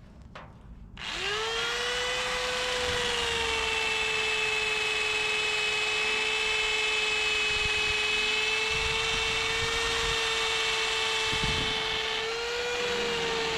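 A handheld electric power tool spins up about a second in and runs with a steady whine over a broad hiss. Near the end its pitch rises slightly, and it stops at the very end.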